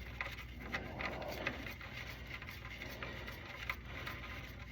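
Faint handling noise of small parts: a few light clicks in the first second and a half, over a low steady hum of room tone.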